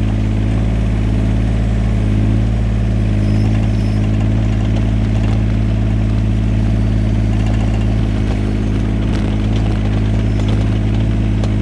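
Yanmar VIO17 mini excavator's small three-cylinder diesel engine running at a steady speed.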